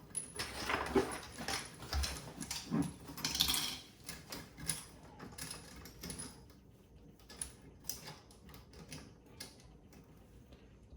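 Light clicks and small metallic rattles of tap fittings being handled, with a few short whining sounds in the first few seconds.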